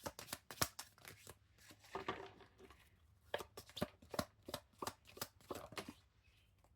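A Wildwood Tarot deck being shuffled by hand: a run of quick, irregular card snaps and flicks that stops about six seconds in.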